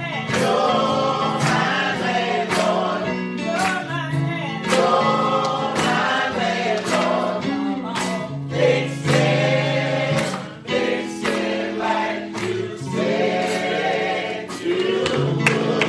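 Church choir singing a gospel song with instrumental accompaniment: a steady low bass line and regular percussive hits.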